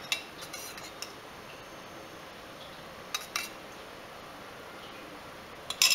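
A few light clinks of metal kitchen utensils while ghee is added to a pan of thick cooked kesari. The clinks come in short clusters about a second in, around three seconds in and near the end.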